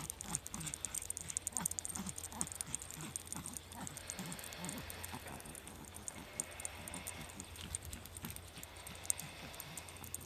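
Small dog panting in quick, even breaths as it trots on a leash, with light clicking steps on the pavement. The owner says the dog is not used to going out and gets out of breath quickly.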